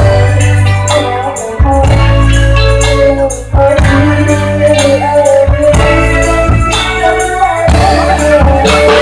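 Loud music with a heavy sustained bass, a wavering melody line and a steady drum beat.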